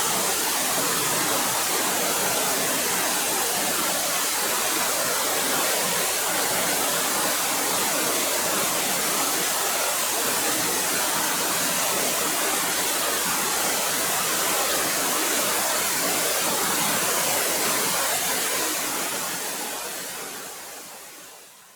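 Waterfall rushing steadily, a dense even roar of falling water, fading out over the last few seconds.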